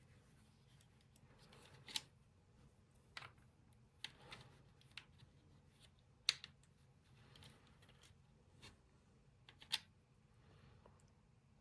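Scattered small clicks and taps with soft rustling from plastic dishwasher control-panel parts being handled and fitted together, about six sharp clicks spread over the stretch.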